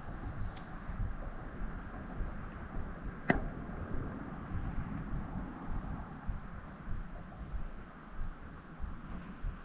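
Summer insects buzzing in a steady high drone, with short higher chirps repeating about once a second, over a low rumbling background. A single sharp click about three seconds in.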